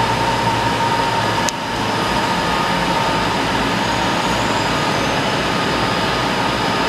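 DMG Mori DMU 210 P 5-axis machining center running a part, a steady mechanical hum and hiss with a steady mid-pitched whine. A single sharp click comes about one and a half seconds in.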